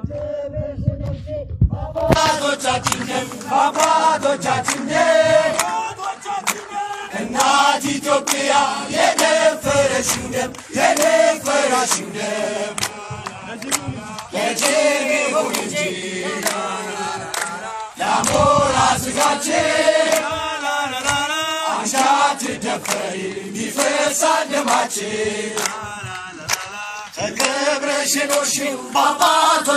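A crowd of protesters singing an Amharic patriotic song together, chant-like, without a pause.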